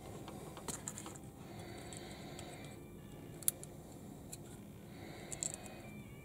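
Small plastic Lego-compatible Sembo building bricks clicking as tiny pieces are pressed onto a plate and handled: a few scattered sharp clicks, the sharpest about three and a half seconds in.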